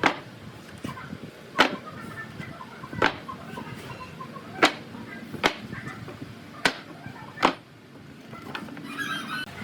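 Seven sharp knocks at uneven spacing, about a second apart: hammer blows on wood. Chickens cluck in the background.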